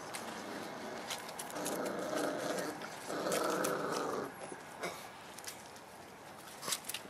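Boerboel puppies play-growling as they wrestle: two growls of about a second each, back to back, starting about a second and a half in, over light scuffling clicks of paws on the ground.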